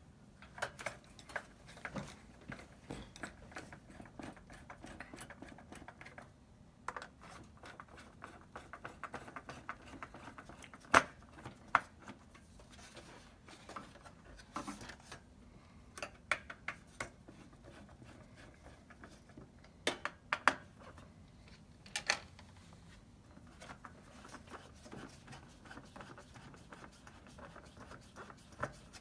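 Small metal parts and a screwdriver clicking and scraping against a PS4's metal shield and heatsink bracket as screws are put back in, with scattered sharp clicks, the loudest about eleven seconds in and again around twenty and twenty-two seconds.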